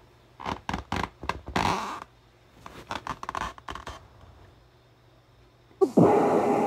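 Inflated balloon belly under a shirt and tie being handled, rubbing and squeaking against the fabric in quick clusters. About six seconds in, a sudden loud bang, the balloon belly bursting, with a long fading tail.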